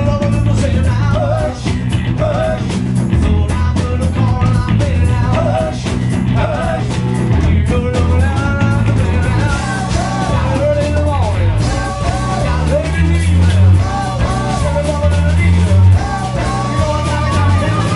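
A live rock band playing, with a lead singer, two electric guitars, a bass guitar and a drum kit.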